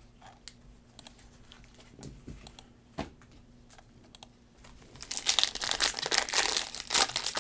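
Light clicks and taps of trading cards being handled, then from about five seconds in the loud crinkling and tearing of a foil card-pack wrapper being ripped open.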